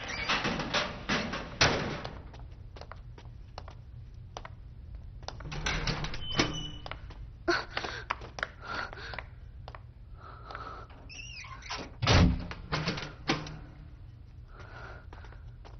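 Footsteps and knocks on a hard floor, thick in the first two seconds and scattered after, with a heavy thunk about twelve seconds in.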